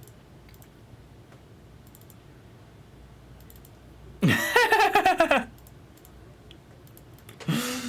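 Faint, scattered clicking of a computer keyboard and mouse. About four seconds in, a brief drawn-out vocal exclamation cuts through it, louder than the clicking.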